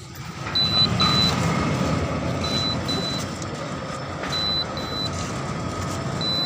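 Centurion D5 Evo sliding-gate motor running as the steel gate slides closed along its track, a steady mechanical hum that comes up within the first second. Pairs of short high beeps repeat about every two seconds throughout as a warning that the gate is moving.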